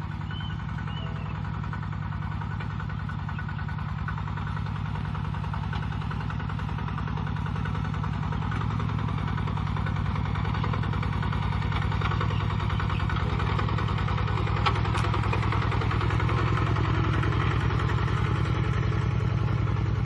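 Single-cylinder diesel engine of a Kubota RT-120 Plus two-wheel walking tractor running steadily under load as it pulls a plough through dry field soil. It grows gradually louder as it comes closer.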